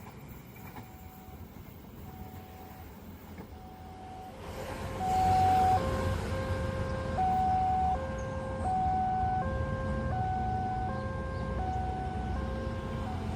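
Railway level-crossing warning alarm sounding a repeating high-low two-tone pattern, each tone about three-quarters of a second long. It is faint at first and much louder from about four and a half seconds in, over a low rumble.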